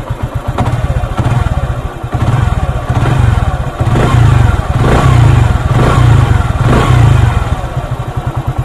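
Motorcycle engine revved a few times from idle by throttle blips. Its timing chain tensioner has just been tightened to cure a timing chain rattle, and it runs with a smoothness the rider can clearly hear.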